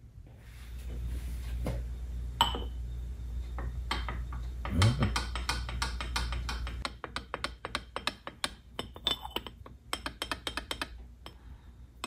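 A run of quick, light clicks and clinks as a carburettor's cast float-chamber cover is rocked on a granite surface plate, its flange tapping down on either side. The rocking is the sign that the flange has been warped by over-tightening and sits on two high points. A low hum runs under the first half and stops about halfway through.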